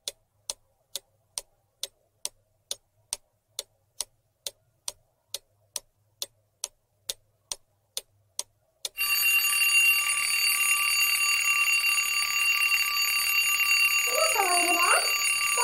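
Countdown-timer sound effect of a clock ticking evenly about twice a second. About nine seconds in it gives way to a continuous alarm-clock bell ringing, marking that the 10-second answer time is up.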